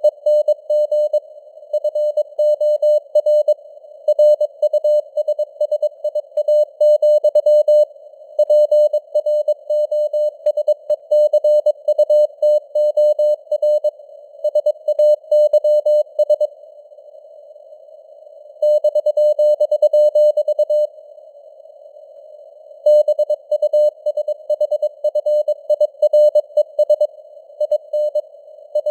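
Morse code (CW) sent at 22 words per minute: a single steady-pitched tone keyed in quick dots and dashes over a narrow band of simulated radio hiss. Twice near the middle the keying pauses for about two seconds between words, leaving only the hiss.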